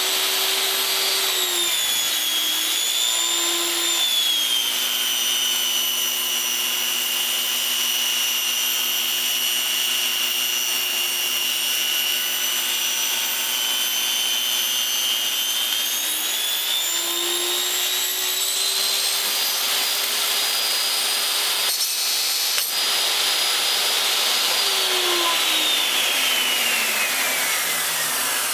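Table saw motor whining steadily while ripping a board, its pitch sagging twice as the wood loads the blade. Near the end the whine falls steadily in pitch as the blade spins down.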